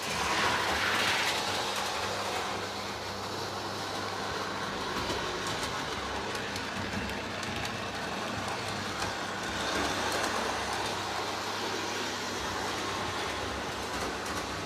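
Lionel O gauge Budd Rail Diesel Car model running on its track. The electric motor gives a steady hum, and the wheels click over the rail joints.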